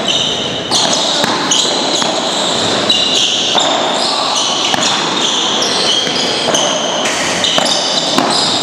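Padel rally: a ball struck back and forth by solid padel paddles and bouncing off the court and walls, a series of sharp knocks.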